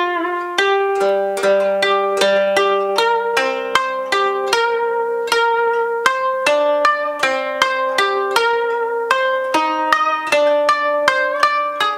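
Koto played solo: single plucked notes ringing out one after another, about two or three a second, some overlapping as they decay.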